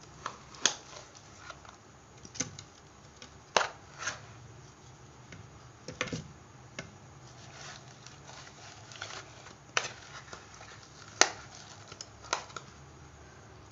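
Frozen mango cubes dropping into a blender jug, making irregular knocks and taps, about a dozen, some sharper and louder than others.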